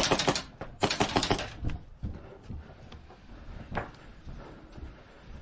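Airsoft gun firing two short bursts of rapid shots in the first second and a half, then scattered softer clicks and knocks.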